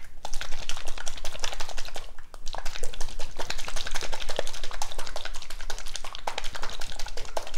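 Plastic So Slime shaker cup being shaken hard in both hands to mix slime powder with water. It makes a fast clatter of clicks and knocks, with a brief pause about two seconds in.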